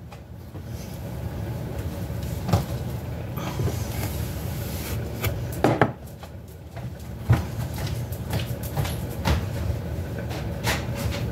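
Kitchen handling noises: a few scattered wooden knocks and bumps, the loudest about two and a half and six seconds in, over a low steady background rumble.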